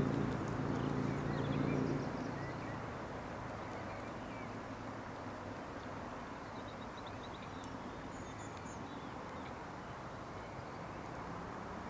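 A steady low hum with several even pitches fades out about two seconds in, leaving a steady rush of wind on the microphone with faint bird chirps.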